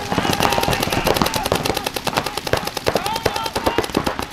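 Rapid, continuous fire from compressed-air paintball markers: a dense run of sharp pops with no break, shouted voices over it.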